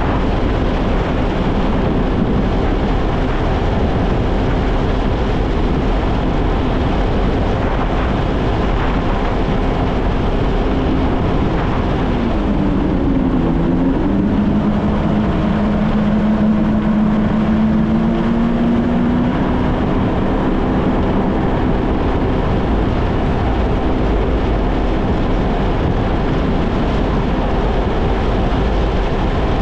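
Kawasaki Ultra 160 LX-S jet ski's naturally aspirated four-cylinder engine running at cruising speed, with water and wind rush over it. About twelve seconds in the engine note dips briefly as the throttle eases and then picks back up, holding a slightly lower steady pitch for a few seconds.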